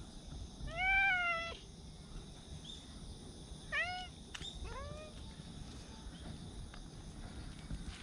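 A cat meowing three times: one long, arching meow about a second in, then two shorter meows around four and five seconds in.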